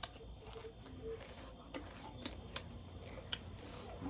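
Close-miked eating: crunchy chewing, with about five sharp clicks spread across the last three seconds.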